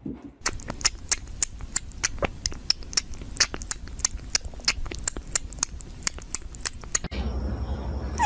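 Rapid, irregular sharp clicks close to the microphone, several a second. Near the end a steady low hum sets in, and a cat gives one short meow falling in pitch.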